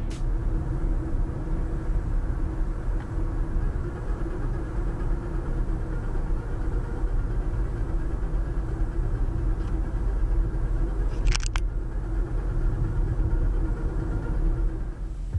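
Steady road and engine noise inside a moving 2013 Honda Civic's cabin: a low rumble with a faint steady hum. A brief sharp crackle comes about eleven seconds in.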